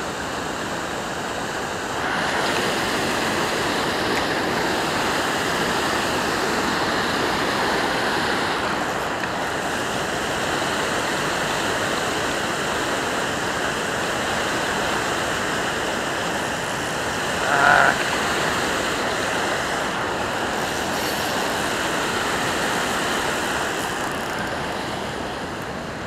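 Water rushing over a low-head river dam and churning below it: a steady roar of moving water. A short higher-pitched sound rises over it about two-thirds of the way in.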